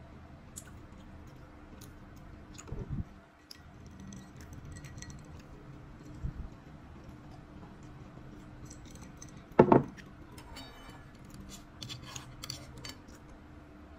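Scattered light clinks and knocks of tableware at a table, with one louder knock a little after the middle and a cluster of small clicks near the end, over a faint steady hum.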